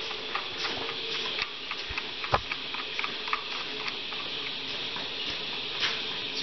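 Small scattered clicks and taps of hands handling a large lead-acid battery's terminal and its plastic cap, with one sharper click about two and a half seconds in, over a steady hiss.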